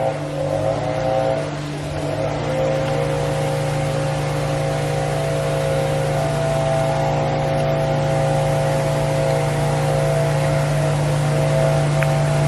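An engine running steadily with a continuous droning hum, its pitch wavering briefly about a second in and then holding even.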